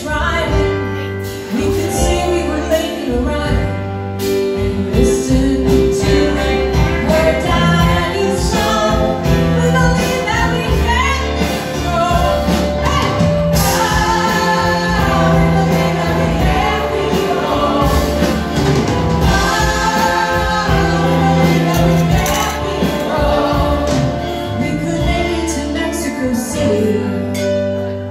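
Live band playing while a group of women sing together at their microphones.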